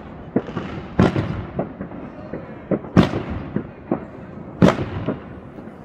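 Fireworks exploding: three loud bangs, about a second in, at three seconds and just before five seconds, each trailing off in a rolling echo, with smaller pops and crackles between.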